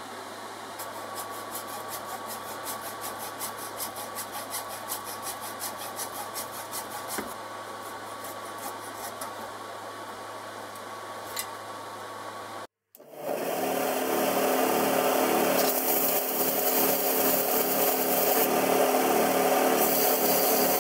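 Hacksaw cutting through a nylon bush held in a vice, in quick even strokes, splitting the bush into two halves. About halfway through the sound changes to a louder, hissing rub as a cut half is pushed back and forth on a flat sanding surface to true its split face.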